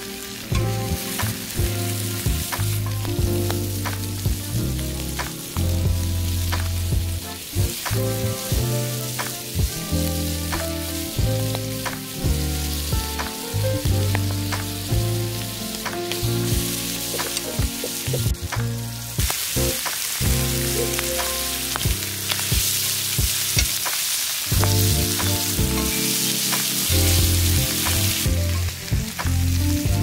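Meat sizzling and frying in a pan on a portable butane gas stove, with short clicks and scrapes as it is turned with tongs; the sizzle grows stronger about two-thirds of the way through. Background music with a deep bass plays over it.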